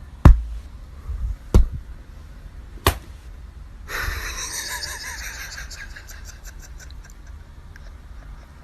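Three sharp knocks, about a second and a half apart, then a steady hiss from about four seconds in that slowly fades.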